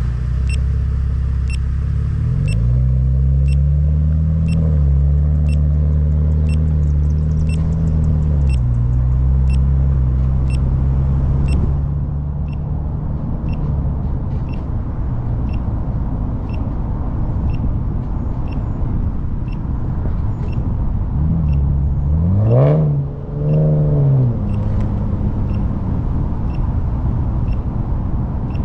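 A car's engine heard from inside the cabin as it accelerates and then cruises, with a brief rise and fall in engine pitch about three-quarters of the way through. Over it, a high electronic warning beep repeats at a steady rhythm throughout, fainter in the second half.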